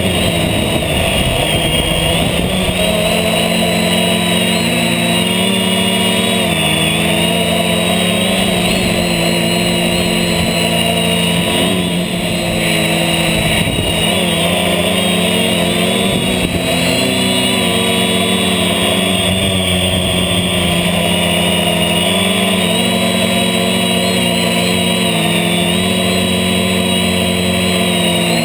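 HobbyKing H550 hexacopter's six electric motors and propellers running in flight, recorded close up from a GoPro mounted on the craft. It is a loud, steady hum of several tones whose pitches waver and shift now and then as the motors speed up and slow down.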